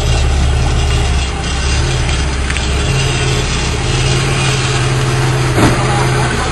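Supercharged 3.8-litre V6 of a 1998 Pontiac Grand Prix GTP, fitted with a 3.4-inch supercharger pulley and a cold air intake, idling with a steady low drone. Its pitch shifts slightly a second in and again about three seconds in. A single sharp click sounds near the end.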